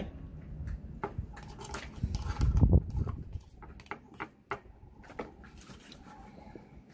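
Kitchen knife clicking and scraping against a raw oyster's shell as it is pried open, a scatter of sharp clicks with a louder low rumbling thud about two and a half seconds in.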